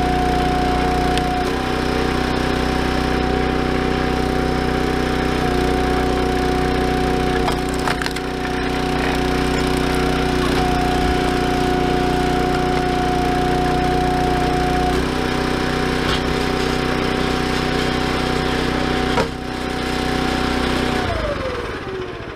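Small gasoline engine of a Ruggedmade hydraulic log splitter running steadily, its hum shifting pitch several times as the hydraulic pump takes and releases load while the ram works. Sharp cracks of firewood splitting come about 8 seconds in and a louder one near 19 seconds. Near the end the engine is shut off and winds down.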